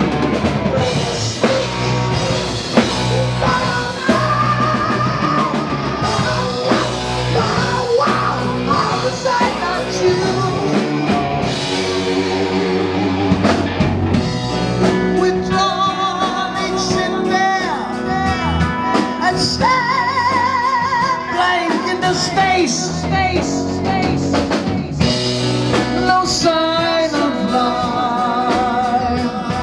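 Heavy metal band playing live: distorted electric guitars, bass and drum kit, with a high lead line held with vibrato.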